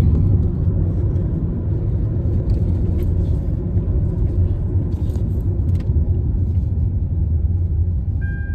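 Steady low road rumble inside a moving car's cabin, the engine and tyres droning as it drives.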